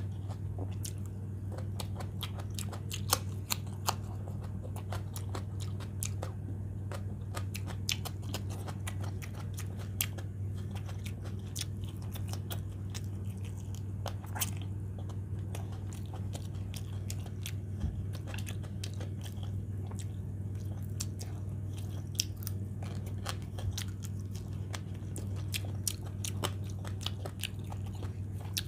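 A person chewing and biting fried fish and vegetable salad eaten by hand, with many short mouth clicks and occasional crunches, over a steady low hum.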